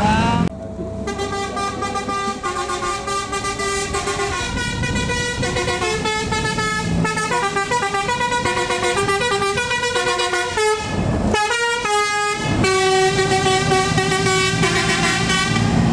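Tour bus 'telolet basuri' horn, a multi-tone musical horn, playing a tune of held notes that step from pitch to pitch, with a short break about eleven seconds in before the tune picks up again.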